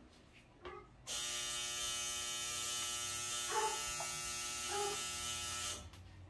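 A small electric motor runs with a steady, even hum for about five seconds, starting about a second in and cutting off suddenly near the end.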